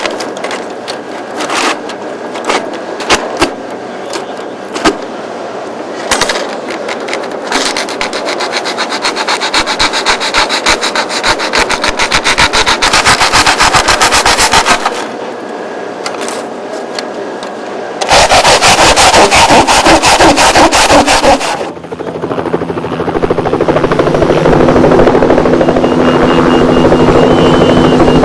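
Hand work on a helicopter rotor blade's aluminium honeycomb core: scattered clicks and taps, then rapid scraping and cutting at the honeycomb, with a loud burst of rasping a little past the middle. In the last third a steady machine drone with a high whine takes over.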